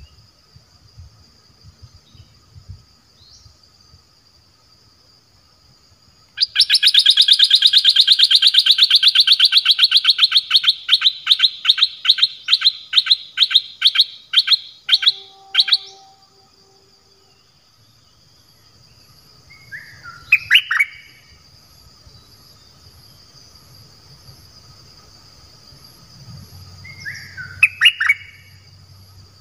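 Calls of a caged decoy bulbul (nok dok taeng): about six seconds in, a long, rapid run of loud, evenly spaced notes that slows and spaces out over some ten seconds before stopping, then two short phrases later on. A steady, faint, high insect whine runs underneath.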